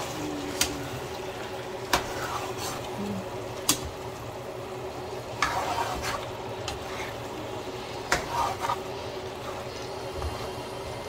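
Metal tongs clicking and scraping against a non-stick frying pan as chicken legs are turned in thick curry sauce, a sharp click every second or two over a steady background hum.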